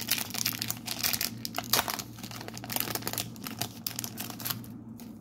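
Foil wrapper of a WWE Panini Prizm trading card pack crinkling and tearing as it is ripped open and peeled back by hand, the crackling stopping near the end.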